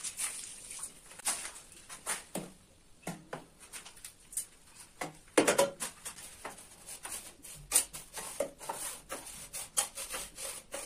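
Wet cement mortar being worked by hand, a run of irregular taps, scrapes and pats, with a louder knock about halfway through.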